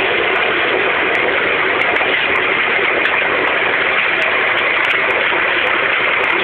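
Stone-grinding machine running in a crushing plant: a loud, even, unbroken din of machinery and grinding rock.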